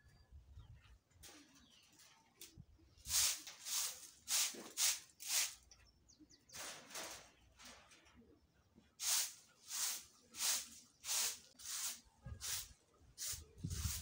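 Short hand broom sweeping a bare dirt yard: swishing strokes about every half second, in runs with short pauses between them.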